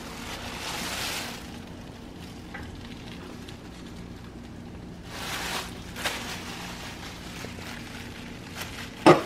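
Plastic shopping bag and plastic wrap crinkling and rustling as a wrapped wine bottle is handled, in two bursts, over a faint steady hum, with a short sharp knock near the end.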